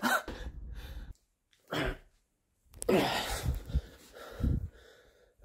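A man's breathy gasps and groans in several short bursts with silent gaps between, one pitched groan falling in pitch about three seconds in.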